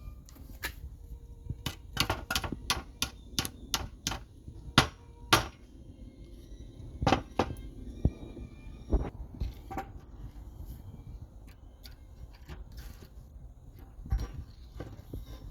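A run of sharp metallic taps and knocks from hand tools and hardware being handled and struck, some ringing briefly. They come two or three a second for the first five seconds, then more scattered.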